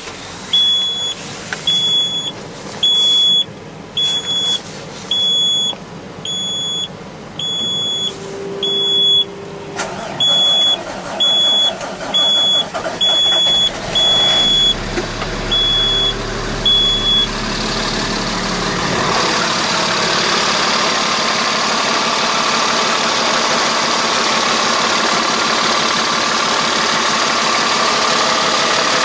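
A dashboard warning beeper sounds about once a second while a 2007 Peterbilt's Cummins ISC inline-six diesel is cranked on a cold start, at about 20 °F. About halfway through the engine catches, the beeping stops, and the diesel settles into a steady cold idle.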